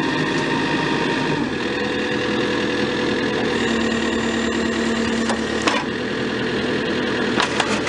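JCB 3CX backhoe excavator's diesel engine running steadily while the hydraulics work, its note shifting about one and a half seconds in and again a couple of seconds later. A sharp knock comes near six seconds in, and a few quick clanks come near the end.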